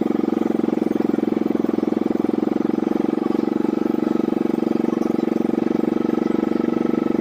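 Small engine of a pump boat running steadily at constant speed, a fast, even pulse with no change in pitch.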